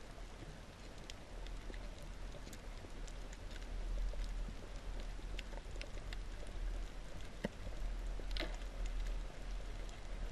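Underwater ambience heard through a diving camera's housing: a steady low rumble and hiss of water with scattered sharp clicks and crackles, a short cluster of them near the end.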